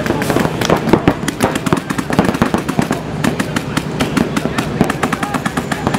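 Several paintball markers firing rapid, overlapping strings of shots, many sharp pops a second.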